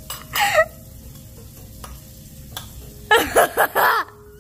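A boy's wordless vocal reaction to the heat of a freshly bitten jalapeño pepper. There is a short breathy sound about half a second in, then loud drawn-out exclamations with wavering pitch about three seconds in.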